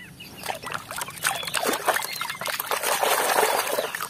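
Muddy water sloshing and splashing in a plastic tub as a plastic mask is dunked and scrubbed in it, louder in the second half.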